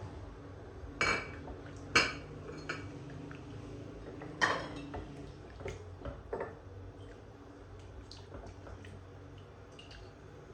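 Hard household items clinking and knocking together as they are handled and set down: about half a dozen sharp clinks with a brief ring, the loudest about two seconds in, then quieter handling noise.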